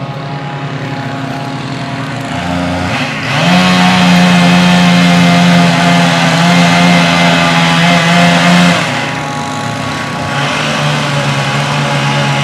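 Chainsaw engine running, revving up to a higher steady pitch about three seconds in and holding there for about five seconds, then dropping back to a lower speed.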